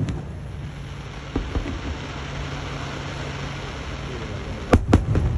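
Fireworks going off: a sharp bang at the start, then a steady hissing crackle, and two sharp bangs in quick succession about a second before the end.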